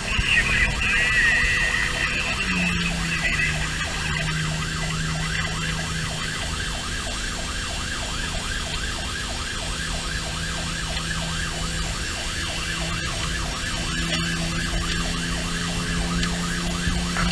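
Pierce fire engine's siren heard from inside the cab, cycling rapidly up and down, over the engine and road noise of the truck under way.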